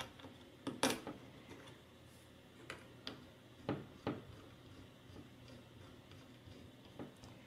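A handful of irregular light clicks and ticks, the loudest about a second in, as a hex screwdriver seats and turns a small M3 bolt into a pillar of an acrylic robot-car chassis.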